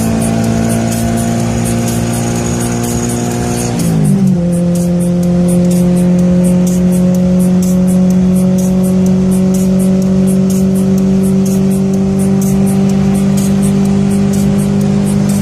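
Tofaş Doğan car engine running steadily under way. About four seconds in its pitch drops quickly, as at a gear change, then it holds and creeps slowly upward as the car pulls on. Music plays along with it, with an even high ticking beat.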